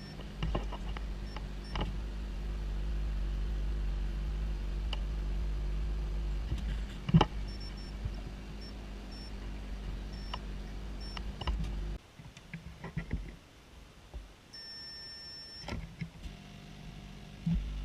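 Short electronic beeps from workbench equipment over a steady low hum, with scattered light clicks; the hum cuts off abruptly about twelve seconds in.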